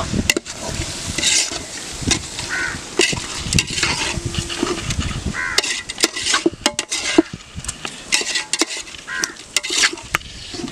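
Steel ladle stirring quail meat and masala in a large aluminium pot, with repeated metallic clinks and scrapes against the pot's sides and bottom.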